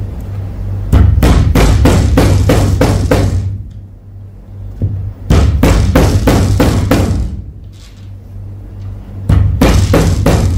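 Background music with a fast drum beat over a steady bass, dropping out twice.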